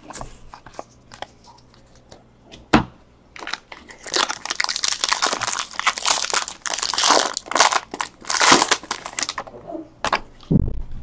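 Foil wrapper of a 2016 Bowman Draft baseball card pack crinkling and tearing as it is ripped open, a dense crackle lasting about six seconds from about three and a half seconds in. Before it, light clicks of cards being handled and one sharp knock; a dull thump near the end.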